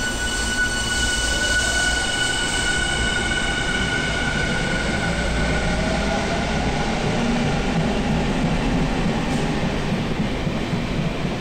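Electric subway train departing an underground platform: a steady high whine fades over the first half while a motor tone rises as it gathers speed, and the rumble of wheels on rail builds as the cars pass.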